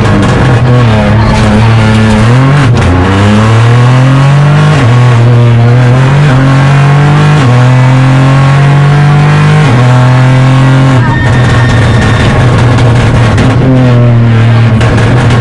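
Opel Corsa Rally4's turbocharged three-cylinder engine under hard acceleration, heard inside the cabin. Its pitch climbs and drops back sharply at each of several upshifts, then falls as the car shifts down near the end.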